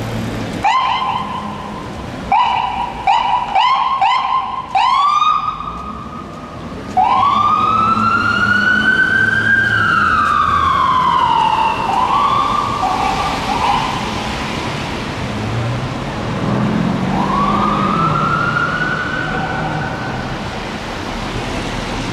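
Electronic siren on a fire department chief's van responding to a call: a run of short chirps, then long wails that rise and fall in pitch, one rising wail near the end.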